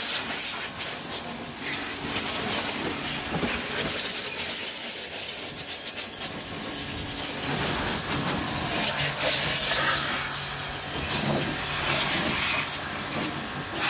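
Pressure washer running, its water jet hissing as it sprays into a car's engine bay over a steady low hum from the pump.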